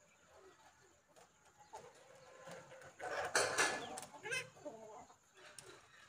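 A loud animal call of about a second, halfway through, followed by a shorter one; fainter animal calls come before it.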